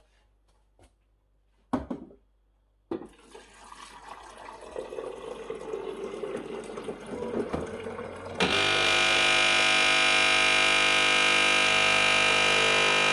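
Water poured into a coffee machine's water tank, filling with a rising tone, after a couple of clicks. About eight seconds in, the Siemens EQ.300's pump starts with a loud, steady buzz as the machine runs its automatic rinse.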